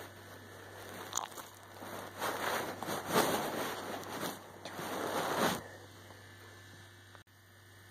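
Several bursts of rustling, rubbing noise right against the microphone over a steady electrical hum, dying away about five and a half seconds in.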